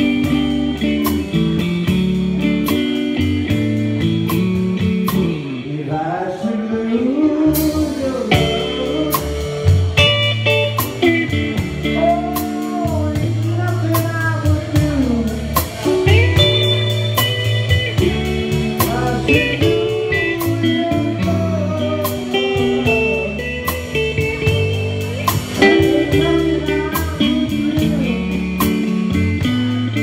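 Live blues band: a Telecaster electric guitar plays lead with bent notes over a drum kit keeping a steady beat.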